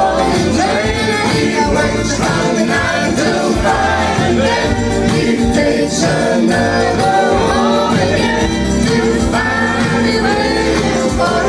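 Woman singing live into a microphone, accompanied by an acoustic guitar, with a steady bass underneath.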